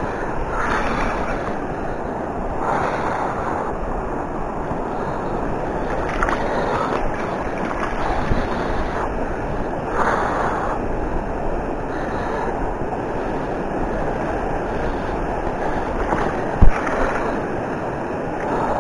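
Steady rush of fast-flowing river water mixed with wind buffeting the microphone. A single sharp thump near the end.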